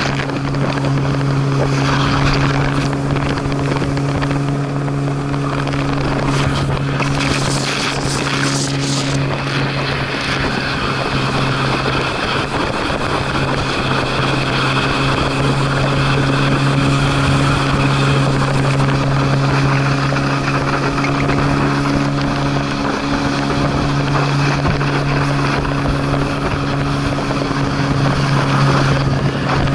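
Tow boat's engine droning at a steady pitch under rushing water spray and wind, heard from the kneeboarder being towed behind it.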